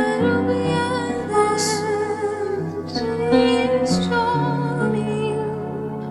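Slow, gentle music: a wavering, held melody line over sustained low chord notes that change every second or so.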